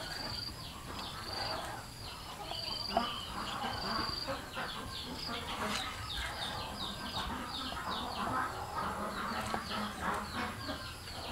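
Chickens clucking amid many short, high, quickly falling chirps, with a few knocks of a cleaver on a wooden chopping board.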